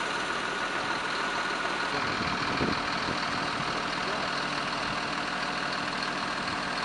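A vehicle engine idling steadily, with a constant high tone running through it.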